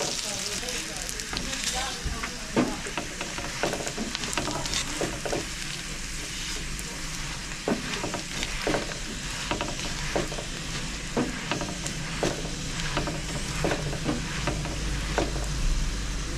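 Food sizzling in hot oil in a pan, with a utensil scraping and knocking against the pan at irregular moments.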